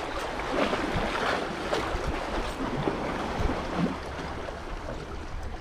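Sea water washing against the shore rocks, with wind buffeting the microphone.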